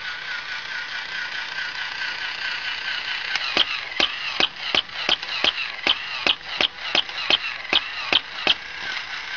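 Battery-operated walking plush puppy toy: its small motor and gears whirring steadily, with a wavering electronic tone for the first few seconds, then a quick run of short, sharp electronic yaps, about three a second, until near the end.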